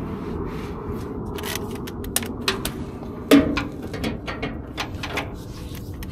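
Scattered clicks and knocks of metal hand tools and sockets being handled, the loudest knock about three seconds in, over a steady low background hum.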